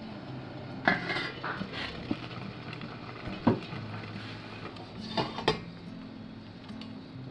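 Stainless steel steamer pan and mini idli plate clanking as the lid is lifted off and the hot plate is pulled out with a cloth: a few short metal knocks, the loudest about three and a half seconds in and two close together a little after five seconds.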